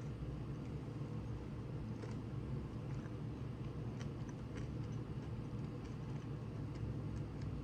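Chewing food, faint, with scattered small clicks, over a steady low hum.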